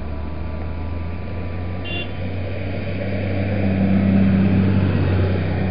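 Diesel tractor engine running as a tractor drives along the road, growing louder to a peak about four seconds in and then easing off.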